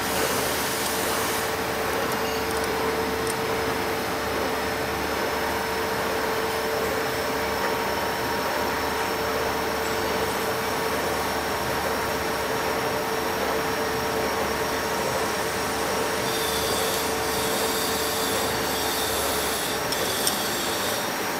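Steady, loud machinery running noise with a held mid-pitched hum that fades out about three-quarters of the way through. Several high, thin whining tones join in for the last few seconds.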